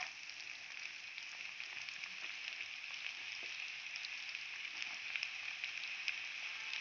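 Chopped raw onions sizzling in hot oil in a kadai, just added: a steady frying hiss speckled with fine crackles.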